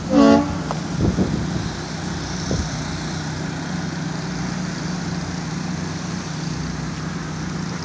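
Gusty post-hurricane wind blowing steadily, under a constant low hum, with a short pitched note at the very start and a couple of faint knocks.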